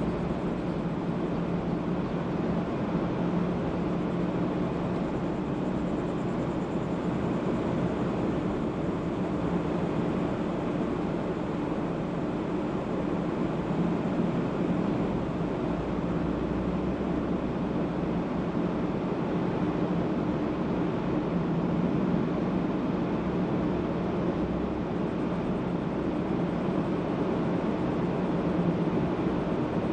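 Steady road and engine noise from a car driving: an even rush of tyre and wind noise over a constant low hum.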